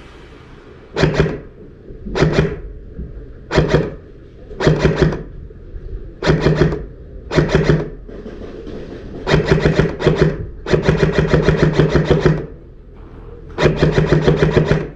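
Electric airsoft gun (AEG) firing repeated bursts of full-auto, each a rapid rattle of shots over the whine of its motor and gearbox. There are about nine bursts, mostly short, with longer ones near the middle and near the end.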